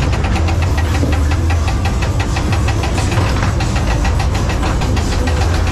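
Ghost train ride car rattling along its track with a fast, even clatter of about eight clicks a second, over a steady low rumble.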